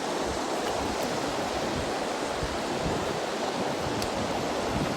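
Steady rush of fast-flowing river water, loud and unbroken.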